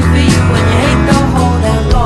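Pop song playing: a vocal line over bass, guitar and a drum beat of about two hits a second.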